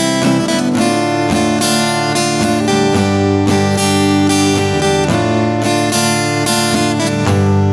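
Acoustic guitar strummed, changing chord every second or two, with no singing.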